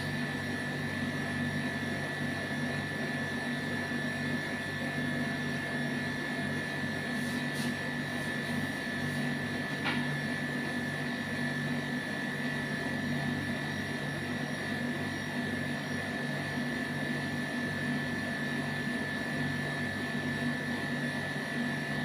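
Steady drone of a running machine: a low hum with a constant high whine above it, and one small click about ten seconds in.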